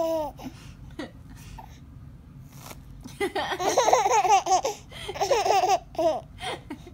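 Baby laughing: after a short lull, a long run of rapid, high-pitched giggles about three seconds in, a shorter run after it, and a few short bursts near the end.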